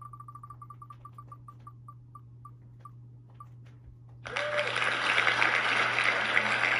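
An online prize-wheel spinner ticks as it slows to a stop, the ticks spreading further and further apart. About four seconds in, a loud burst of applause sound effect plays, announcing the winner.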